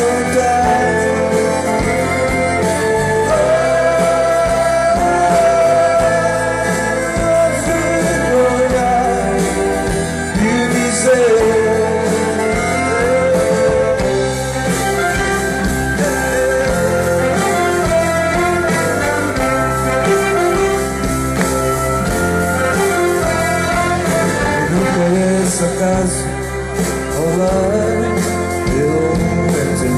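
Live performance of a song by a male singer with acoustic guitar and a band backed by an orchestra with strings and keyboard, sung and played without a break.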